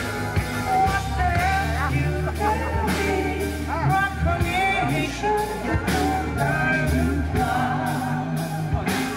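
Live pop-rock band playing: male voices singing into microphones over guitar, bass and a steady drum beat.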